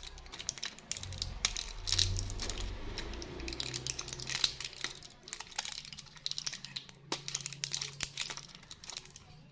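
Foil-backed plastic candy blister pack crinkling and crackling in the hands as the foil backing is peeled away, in quick irregular crackles.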